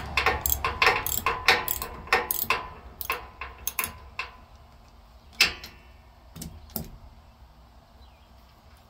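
Hand socket ratchet clicking in quick strokes as a steering linkage nut on a yard tractor is turned off by hand, with the nut held by a combination wrench. The clicking is rapid at first, thins out to a few single clicks, and stops about seven seconds in.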